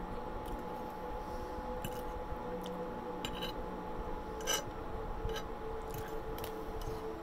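A person eating soft food: quiet chewing and mouth sounds, with a metal fork clicking and scraping on a china plate every second or so, the sharpest click about halfway through. A steady background hum runs underneath.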